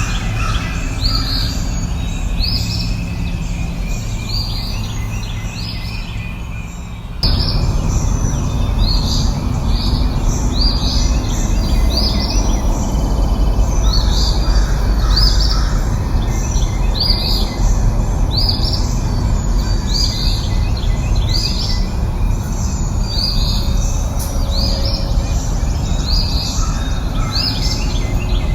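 Birds calling, a short chirping call repeated about once a second, over a steady low rushing noise. About seven seconds in, the background noise jumps suddenly louder.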